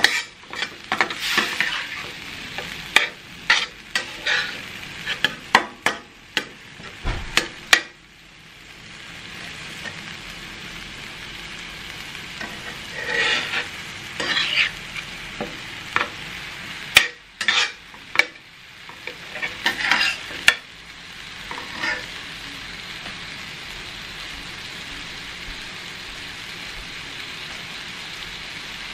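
Ground beef in taco-seasoning sauce sizzling in a stainless steel skillet as it is brought to a boil. A metal spatula scrapes and taps against the pan in two spells of stirring, the first in the opening few seconds and the second in the middle. Between them, and through the last several seconds, there is only a steady sizzle.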